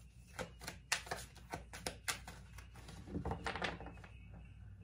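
A deck of cards shuffled by hand: a run of sharp card clicks and slaps that thins out near the end.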